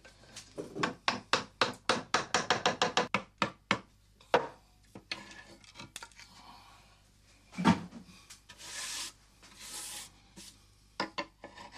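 A hand tool working a plaster cast: a quick run of short scraping strokes, about five a second, then scattered strokes, a single loud knock about two-thirds in, and two longer rubbing strokes after it.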